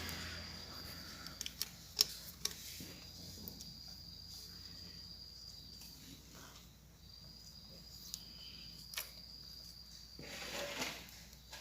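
Faint, scattered metallic clicks and taps, the loudest about two seconds in, from a magnet tool being worked inside an open motorcycle engine's clutch-side case to pull out broken metal fragments.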